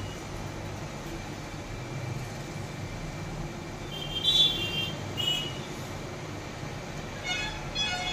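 Steady rushing of a hot air rework gun's blower, used to heat a phone logic board. A few short high-pitched tones sound about four seconds in and again near the end.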